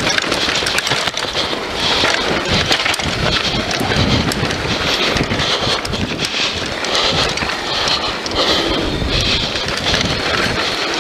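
A Scott Voltage FR 730 freeride mountain bike descending a dirt trail at speed. Wind rushes over the action camera's microphone, and the tyres roll on loose dirt while the chain and frame rattle in many quick clicks over the bumps.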